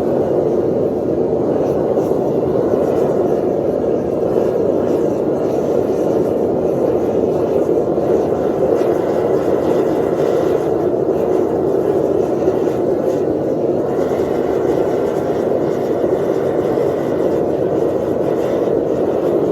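Copper-melting furnace running with its forced-air blast: a loud, steady, unbroken roar.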